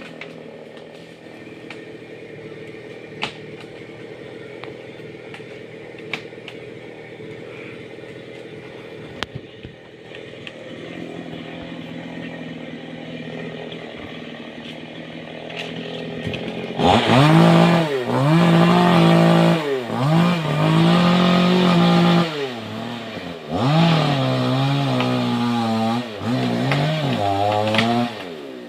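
Chainsaw idling steadily for more than half the time, then revved up hard about two-thirds of the way through. Its pitch rises, holds and drops back several times in quick succession, as when cutting through wood.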